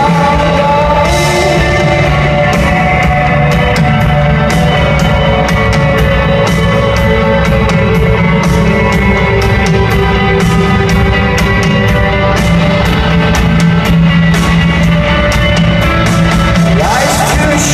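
Rock band playing live, loud and full: guitars and bass over drums with frequent cymbal hits, with little or no singing.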